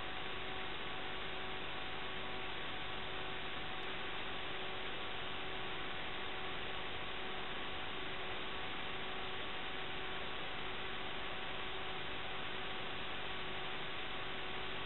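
Steady electrical hiss with a faint hum of a few steady tones, unchanged throughout, and no motor or wind sound coming through.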